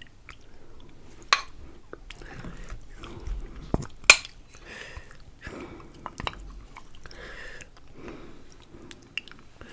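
Close-up eating sounds: wet chewing of braised pork, rice and beans, broken by sharp mouth clicks, the loudest about a second in and again about four seconds in.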